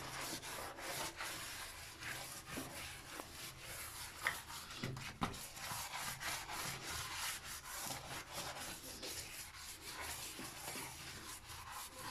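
A soapy sponge scrubbing glazed floor tiles and grout lines: a continuous, irregular rubbing, with a couple of light knocks near the middle.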